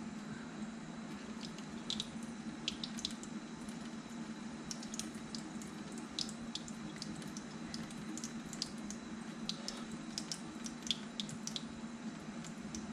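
Kitchen faucet running a thin stream into a steel sink, with scattered light clicks and drips as a small bluegill is filleted by knife under the water. A faint steady hum sits underneath.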